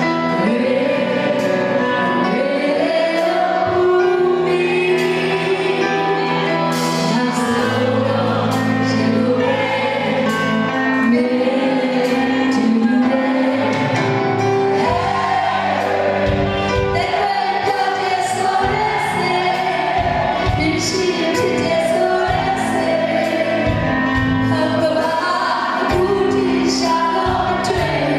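A woman singing live into a microphone over electronic keyboard accompaniment. Low, regular beats join in about halfway through.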